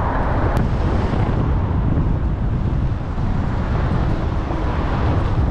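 Wind buffeting the microphone of a camera on a moving bicycle, a steady low rumble, with a single sharp click about half a second in.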